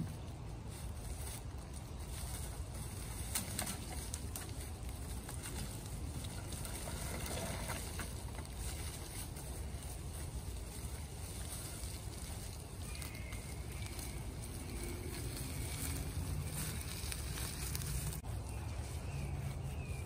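Dry fallen leaves crackling and rustling under the wheels of a two-wheeled hive cart and the feet of the person pulling it, over a steady low rumble.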